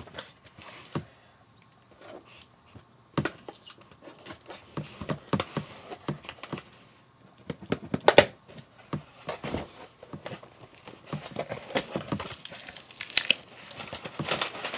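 Cardboard shipping box being opened by hand: packing tape tearing, cardboard flaps handled with scattered sharp clicks, and packing paper crinkling and rustling, densest near the end.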